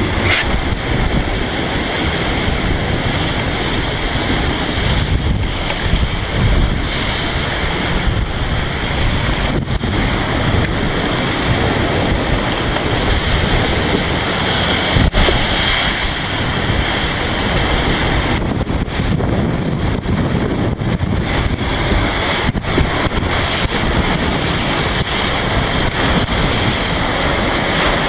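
Wind buffeting the microphone over the rush of water and breaking waves along the hull of an ocean racing yacht planing fast through rough seas, with a few brief knocks.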